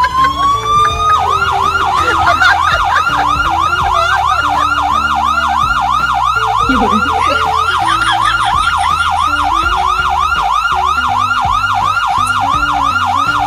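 Electronic siren horn: a slow rising wail about a second in, then a fast yelp, about three up-and-down cycles a second, that cuts off suddenly at the end. Background music runs beneath it.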